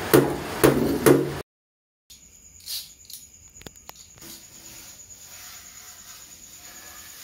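Three heavy knocks about half a second apart, then the sound cuts out. After that comes only a faint background with a steady high-pitched whine and a few light clicks.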